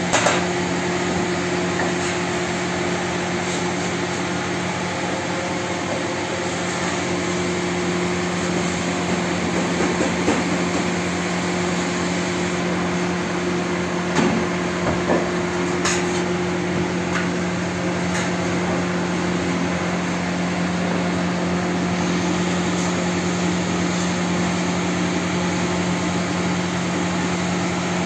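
Bakery machinery running with a steady low hum and drone, with a few short knocks and clatters, the loudest about ten and fourteen seconds in.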